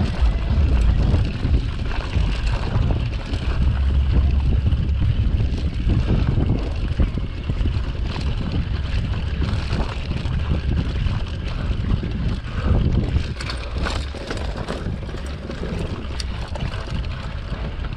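Wind buffeting the microphone of a handlebar camera on a bicycle racing over a dirt track, with a steady low rumble from the tyres on the rough ground. A few sharp knocks and rattles come about two-thirds of the way through.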